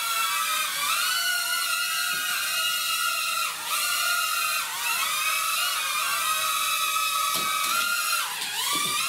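Small quadcopter drone's motors whining high as it flies, the pitch gliding up and down every second or so as the throttle changes.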